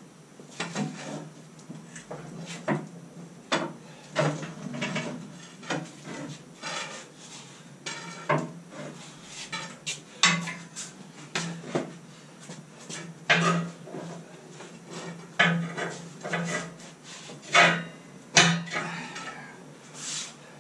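Irregular sharp metal clanks and knocks, about one a second, some louder than others, from steel gear being handled at a DIY gantry crane holding a lathe.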